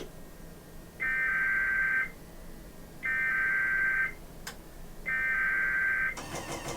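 Emergency Alert System SAME header on NOAA Weather Radio: three bursts of shrill digital data tones, each about a second long and a second apart, over faint radio hiss. It is the coded header opening a River Flood Warning broadcast.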